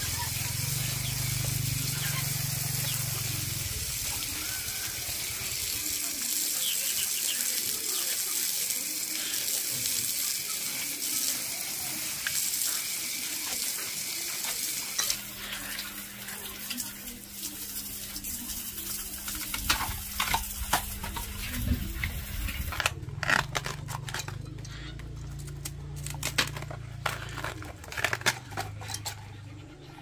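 Tap water running from a hose and splashing on wet concrete as bamboo shoots are rinsed under it. The water quietens about halfway through, and a string of sharp knife cuts follows as the shoots are peeled.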